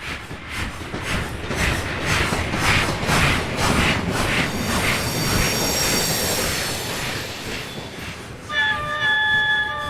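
Steam locomotive passing close by, its exhaust chuffing in a regular beat of about two a second that blurs into a steady rumble. A multi-toned whistle sounds about eight and a half seconds in.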